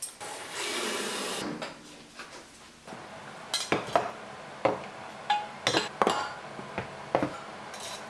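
A metal tin and its metal lid clinking and tapping on a kitchen benchtop as they are handled: about ten sharp clinks, beginning about three and a half seconds in. A brief rustle near the start.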